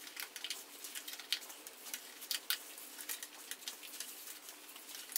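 Note cards being slid and pressed in between a dirt-bike wheel's aluminium rim and its tyre: faint, irregular paper clicks and light scrapes, several a second.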